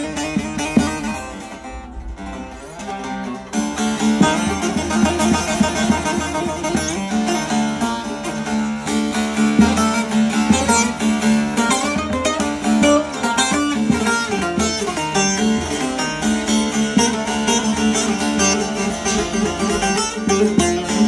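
Bağlama (long-necked Turkish saz) with a carved mulberry bowl and spruce top, played solo with a plectrum. A few quieter, sparser notes come first; about three and a half seconds in it gives way to fast, dense picking over a steady low note.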